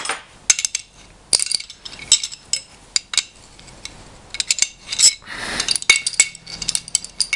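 Steel spanners clinking as a 12 mm spanner is picked from a set on the bench, then scattered sharp metal clicks and a short scrape about five seconds in as it is fitted to the gas strut's end and turned to tighten it.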